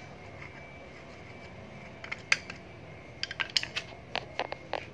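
Light metallic clicks and taps of a hand tool working on the reach truck's drive unit: a couple of clicks about two seconds in, then a quick run of clicks over the last second and a half.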